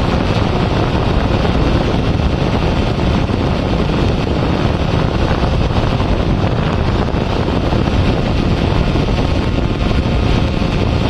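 A quadcopter drone's propellers running in flight, heard through its own onboard microphone as a steady, loud rush mixed with wind on the microphone.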